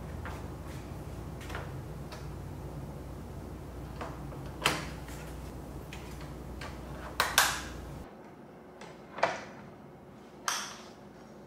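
Clicks and knocks of the Samsung Smart Monitor M8's stand parts being handled and fitted together on a desk, with a few sharper knocks, two of them in quick succession about seven seconds in.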